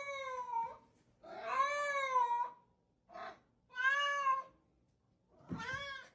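A cat meowing five times in a row: long, drawn-out meows that rise and fall in pitch, with one short meow in the middle.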